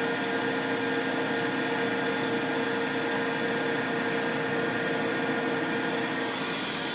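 Steady whir and hum of running machinery, with several constant tones held throughout.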